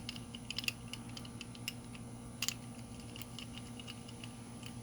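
Lock pick rake scraping and clicking against the pins inside a disc padlock, light irregular metallic clicks with one sharper click about halfway through, as the lock is raked without opening.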